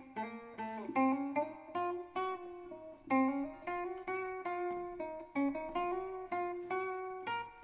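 Solo guitar playing a melodic passage of single plucked notes, several per second, each ringing and fading.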